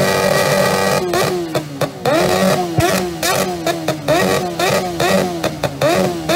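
Motorcycle engine with short open straight exhaust pipes revved hard against its rev limiter. It holds a steady screaming note for about a second, then bounces in quick repeated revs, about two a second, with sharp cracks from the exhaust.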